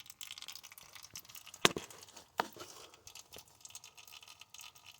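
Wrench and socket handling on the drain plug of an old power steering pump: a sharp loud knock about a second and a half in and a smaller one just under a second later, among light rustling and crackling.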